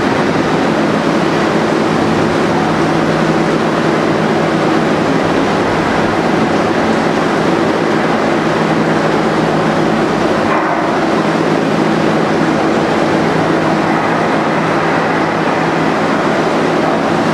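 Hurricane wind and rain heard through a diner's window: a loud, steady rush with a low hum beneath it.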